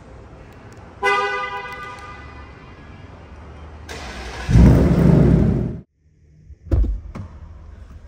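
Car horn sounds once about a second in, then dies away over the next two seconds. A loud low rumble builds for about two seconds and cuts off abruptly, followed by a single sharp thump.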